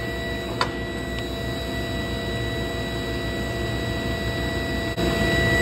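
Table saw running at speed with the blade spinning freely, not cutting: a steady motor and blade whine. There is a single click about half a second in, and a short dip near the end after which the running is louder.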